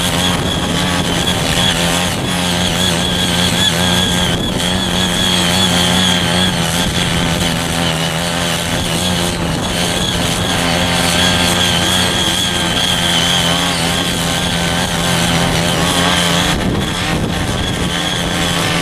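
Small engine of a mini foldable cultivator running steadily under load, its rotary tines deep-tilling soil, the note wavering slightly as the load varies. Near the end the engine note changes and turns rougher.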